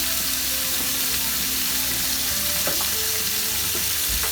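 Chicken breast strips sizzling steadily as they stir-fry in hot oil in a pan, with a single faint knock in the middle.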